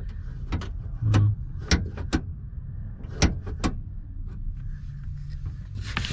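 Half a dozen sharp clicks and clacks from a truck door's latch mechanism being worked by hand, over a steady low hum, with a short rustle near the end.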